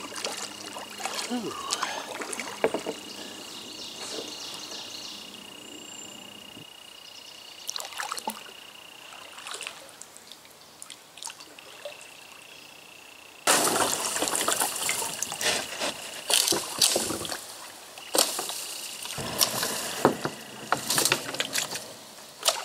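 Kayak paddle strokes dipping and splashing in shallow river water, with trickling and sloshing. The splashing turns much louder a little past halfway, and a thin steady high tone runs behind most of it.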